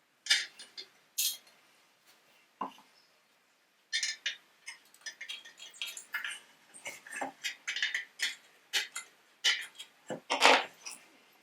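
Metal carriage-lamp parts clinking and knocking as they are handled, in irregular taps that come thick and fast from about four seconds in, with one louder clank near the end.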